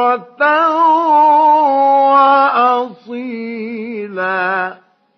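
A man's voice reciting the Quran in the melodic mujawwad style, drawing out the words "bukratan wa asila" in long, ornamented held notes with vibrato in two phrases, then stopping shortly before the end.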